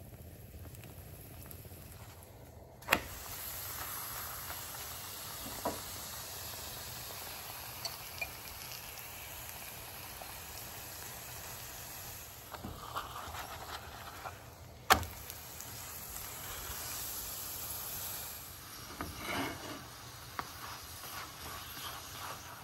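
Paratha frying in oil in a pan, a soft steady sizzle, with two sharp clicks, one about three seconds in and one about halfway through.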